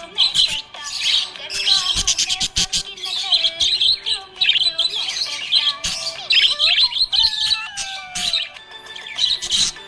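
Budgerigars chirping and twittering rapidly and almost without a break, over background music with long held notes.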